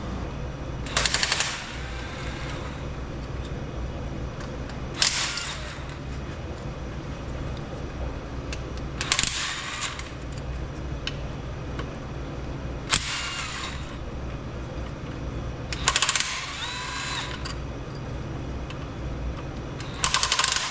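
Impact wrench fired in six short rattling bursts about four seconds apart, running bolts off a Detroit Diesel 3-53 engine during teardown, over a steady low hum.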